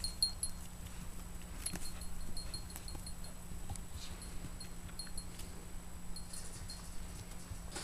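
Metal tags on a dog's collar jingling in quick runs of light, high clinks, about four a second, as the dog trots around. They come in short spells with pauses between, over a faint steady hum.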